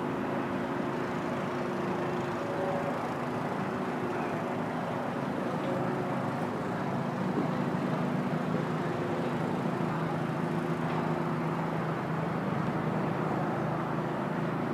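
Steady hum of a running motor, with several low held tones that drift slightly in pitch.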